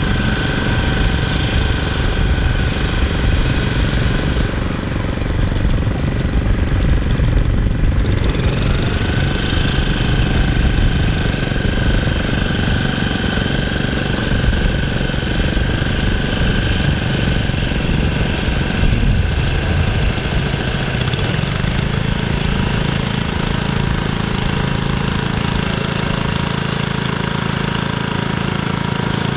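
Small petrol engines of walk-behind greens mowers running steadily as they cut a putting green, with a steady high whine over a low drone.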